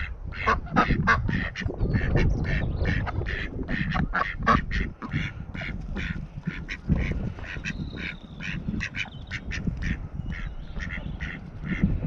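Domestic ducks quacking in a rapid run of short, repeated calls, several a second, while feeding. A low wind rumble on the microphone lies underneath.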